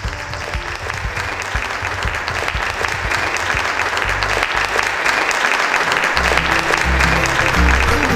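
A dense rushing noise that grows steadily louder. Music with a low, pulsing bass comes in about six seconds in.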